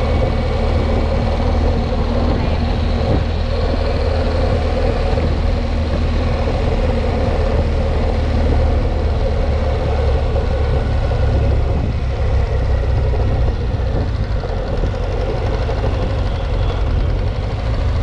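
Motorcycle running steadily while being ridden, with a continuous low rumble of engine and wind.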